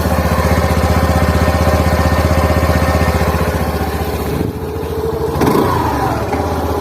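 TVS Jupiter base-model scooter's single-cylinder engine idling through its stock exhaust, a steady even putter. It gets one short blip of throttle about five seconds in, then drops back to idle.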